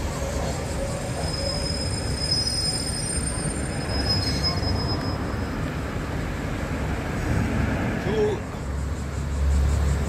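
Diesel railcars on the Ibusuki Makurazaki Line running with a steady low engine rumble, joined from about two to five seconds in by a thin, high squeal from the train. Near the end the engine rumble grows louder.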